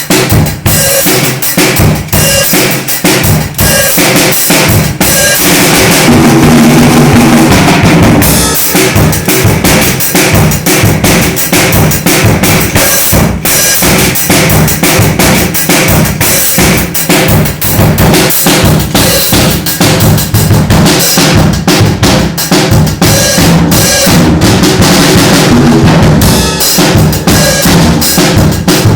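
Mapex drum kit played continuously: a busy groove of bass drum, snare and rimshots, with a denser, sustained stretch about six to eight seconds in.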